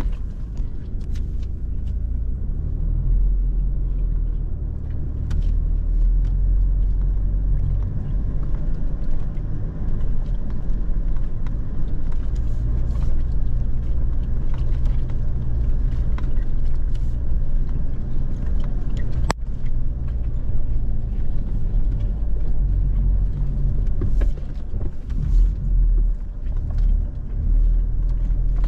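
A vehicle driving: a steady low rumble of engine and tyres, with scattered small knocks and rattles and one sharp click about two-thirds of the way through.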